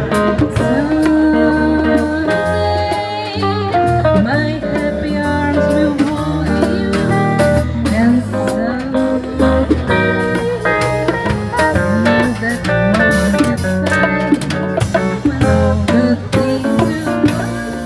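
A band playing blues: guitar lines with bends over bass and a drum kit.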